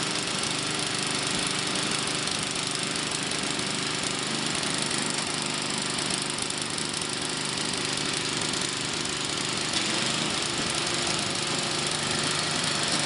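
Craftsman 5/24 track-driven snow blower's small 5-horsepower engine running steadily.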